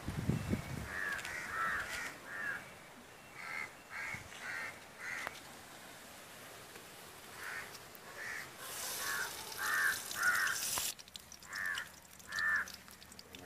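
Crows cawing repeatedly, harsh calls in short runs of two to six. A steady hiss runs for about two seconds in the second half and stops suddenly.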